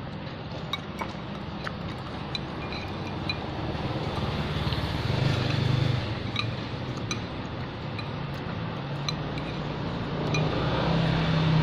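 Steady motor-vehicle engine noise, getting louder about ten seconds in, with light clinks of a metal fork and spoon against a ceramic bowl.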